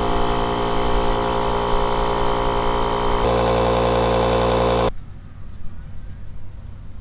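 Portable 12-volt jump-starter compressor (JF.EGWO 4000A) running as it inflates a fat e-bike tyre. It gives a steady mechanical hum whose note shifts slightly about three seconds in, then cuts off suddenly about five seconds in.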